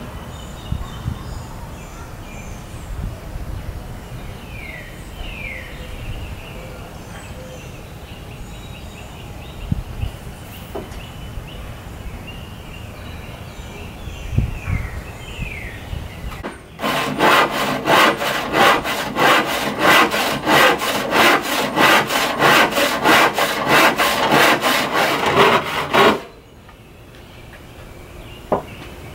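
Hand saw cutting through a cherry board with steady back-and-forth strokes, about two a second. The sawing starts a little past the middle and runs for about ten seconds, then stops abruptly.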